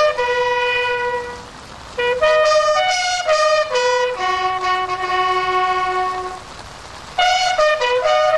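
Bugle call on a military bugle: runs of short notes jumping between a few fixed pitches alternate with long held notes, with two brief breaks for breath, the first about a second and a half in and the second near the end.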